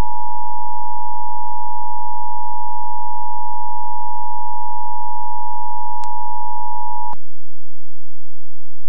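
Emergency Alert System attention signal: the steady two-tone alert (853 and 960 Hz sounded together) that opens a required monthly test of the EAS. It cuts off abruptly about seven seconds in.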